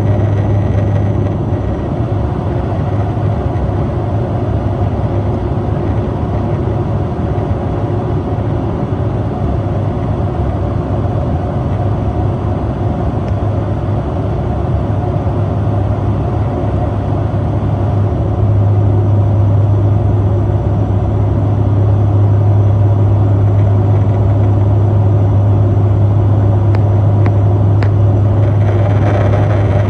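Turboprop airliner's engine and propeller drone heard inside the cabin, steady, with a strong low hum from the propeller. It grows slightly louder about two-thirds of the way through.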